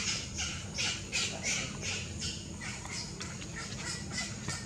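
A rapid run of short, harsh squawking animal calls, about three a second, stopping near the end.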